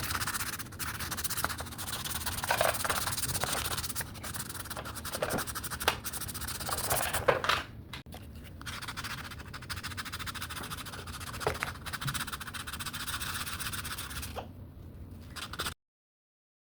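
Uneven scratching and rubbing of hand sanding on a small wooden carving, with scattered light knocks. It cuts off suddenly near the end.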